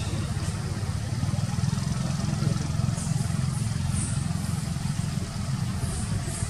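Steady low rumble of an engine running, with a few faint, short high chirps about three and six seconds in.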